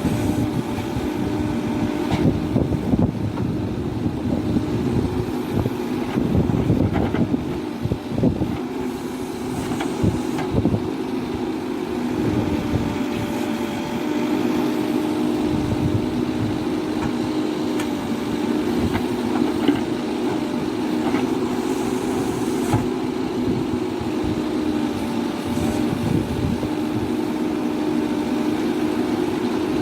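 Mahindra backhoe loader's diesel engine running steadily with a constant hum, with scattered short knocks throughout.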